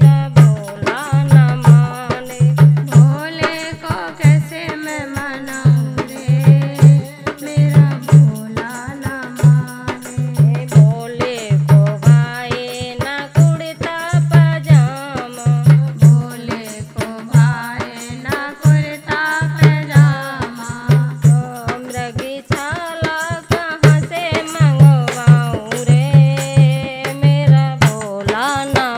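A woman singing a Hindi devotional Shiva bhajan in folk style, accompanied by a dholak drum beating a steady rhythm.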